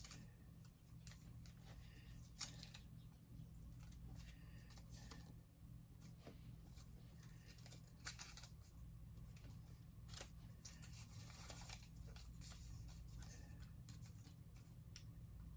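Near silence with a low steady hum, broken by scattered faint clicks and short light rustling sounds, like small handling noises.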